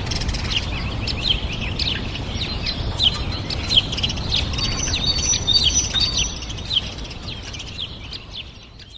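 A flock of small birds chirping, with many short, quick notes that slide downward in pitch and overlap one another, over steady low background noise. The sound fades out near the end.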